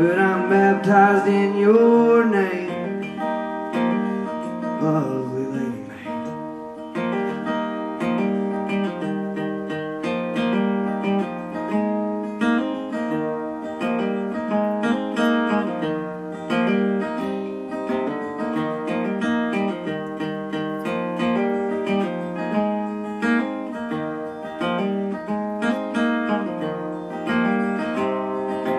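Live solo steel-string acoustic guitar, strummed and picked through an instrumental passage. At the start a singing voice holds a wavering note.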